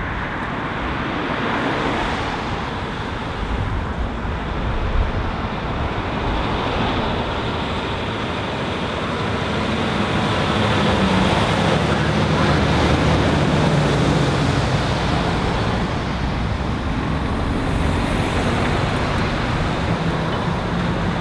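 Road traffic at a roundabout, with a MAN heavy-haulage tractor unit's diesel engine pulling a long low-loader trailer past. Its low engine note builds about halfway through and is loudest a little after the middle.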